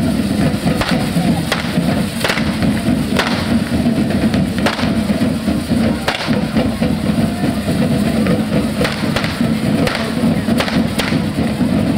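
Firecrackers from a devils' fire show going off in about a dozen sharp, irregular bangs over a continuous loud din.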